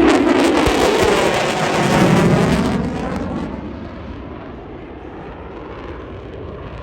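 Jet aircraft passing by, its noise loud for the first three seconds and then fading away.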